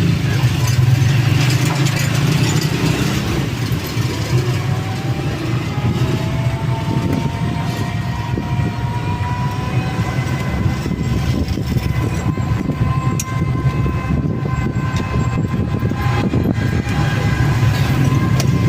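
A road vehicle on the move: a steady, loud low rumble of motor and road noise, with a faint whine that slowly rises in pitch partway through.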